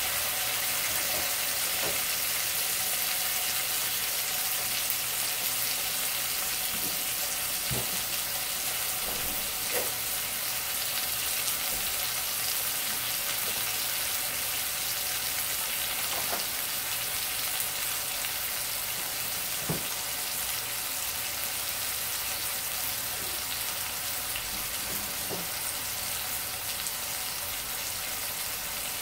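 Marinated pork chops sizzling in a cast-iron skillet: a steady frying hiss with an occasional pop.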